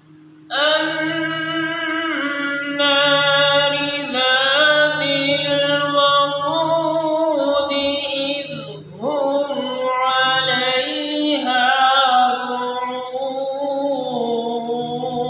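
A man recites the Quran in the melodic qirat style, drawing each phrase out into long, ornamented held notes. He pauses briefly for breath about nine seconds in.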